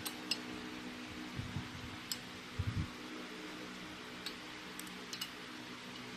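Light, sharp clicks and a few soft low thuds of tools and parts being handled, scattered over a steady low hum.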